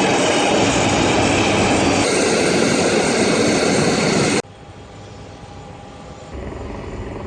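Loud, steady noise of aircraft engines running on an airport ramp, which cuts off abruptly about four seconds in, leaving a much quieter low background hum.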